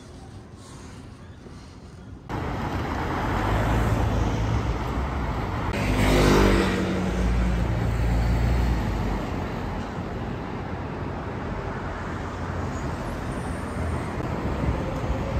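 City street traffic noise, a steady rumble and hiss that starts abruptly about two seconds in, with one vehicle passing close about six seconds in, its pitch falling as it goes by.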